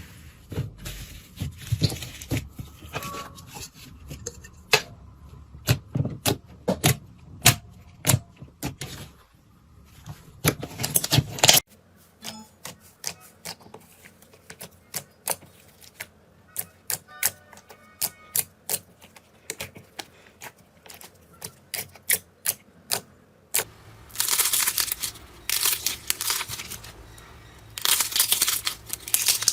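Slime being squeezed, stretched and poked by hand, giving many sharp clicks, pops and crackles from trapped air. The sound changes about twelve seconds in and again about twenty-four seconds in, after which it turns to longer crackling, crunchy bursts.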